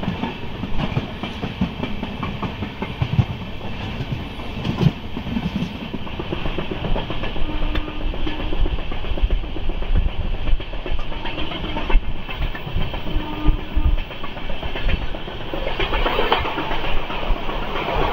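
Deccan Queen passenger coach running at speed, wheels clattering over the rail joints with an irregular knocking. The clatter gets louder over the last couple of seconds as the train runs into a station platform.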